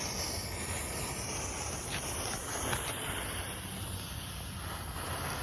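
Steady hiss with a couple of faint ticks from a lit 'hen laying eggs' novelty firework burning before it starts popping.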